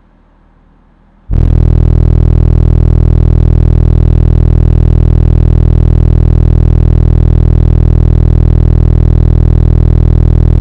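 Car subwoofers playing a loud, steady 40 Hz test tone, driven by two strapped C2 Audio Recon 1.6 amplifiers. It starts abruptly about a second in and cuts off suddenly at the end. This is the 40 Hz distortion-detection check at full power, which the owner judges looks good.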